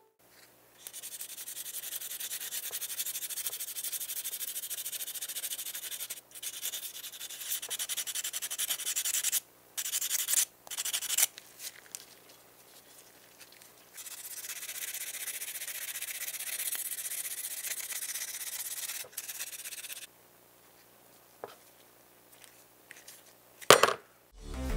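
A small bare diecast metal model-car part being rubbed down by hand with an abrasive: a steady hissing scrape that runs for several seconds at a time, stopping and restarting a few times. A single sharp knock comes near the end.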